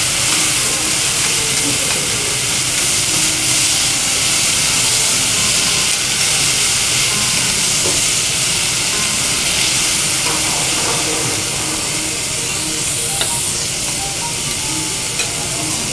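Food sizzling steadily on a teppanyaki griddle, a dense even hiss, with a couple of light taps near the end.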